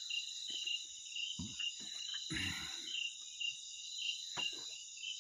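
Night insects, crickets, trilling steadily with a high chirp pulsing about twice a second. A few short, low sounds come in between.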